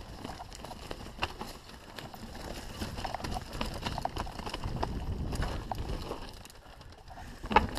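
Enduro mountain bike rattling down a rocky trail: tyres crunching over stones and dirt with frequent knocks and clatter from the bike, a low rumble swelling in the middle, and a sharp loud knock near the end.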